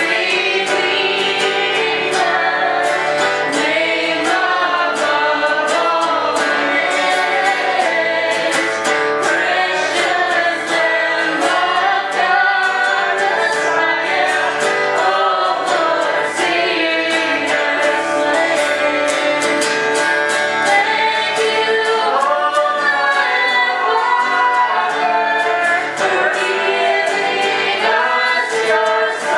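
A woman singing a praise song into a microphone while strumming an acoustic guitar, with a small group singing along.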